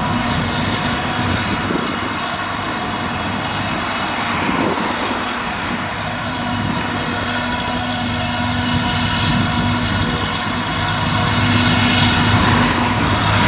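Claas Jaguar 850 self-propelled forage harvester running under load while chopping grass and blowing it into a trailer: a steady drone of engine, chopping drum and blower, a little louder near the end. A tractor pulling the trailer runs alongside.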